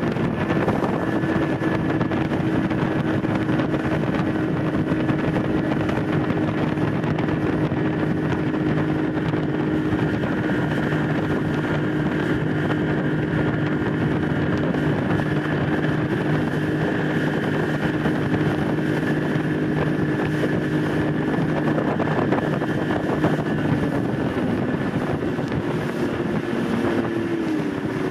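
Bass boat's outboard motor running steadily at cruising speed, with wind noise on the microphone. The engine note dips and then rises again near the end.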